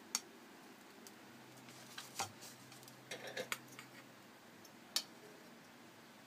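A steel spoon clicking and tapping lightly against a ceramic plate of rice. There are a handful of short, sharp clicks spread over several seconds, with faint room tone between them.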